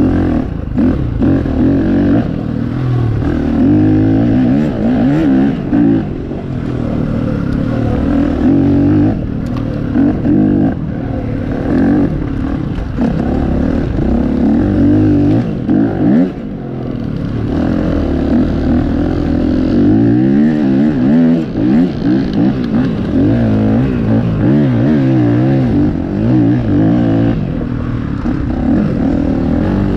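Dirt bike engine running hard off-road, its revs rising and falling constantly as it is ridden, with a few brief drops off the throttle.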